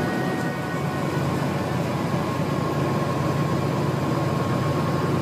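Steady road and engine noise of a car driving through a road tunnel, heard from inside the car. The last faint notes of music die away about a second in.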